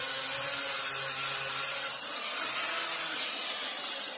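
Angle grinder fitted with a sanding disc, running steadily and sanding welds on mild steel flush, with a motor whine over the abrasive noise. About two seconds in, the low part of the hum drops away and the sound shifts slightly.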